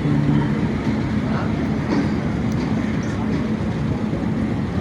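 A train's steady running noise with a continuous low hum; a second, lower tone cuts off shortly after the start.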